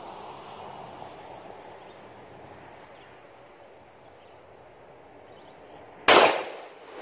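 A single loud 9mm pistol shot about six seconds in, fading away over about half a second.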